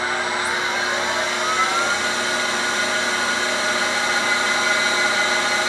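Grinder motor and grinding wheel spinning up, a whine rising in pitch over the first two seconds and then running steadily with a high hiss. The wheel is backed off and is not yet touching the work.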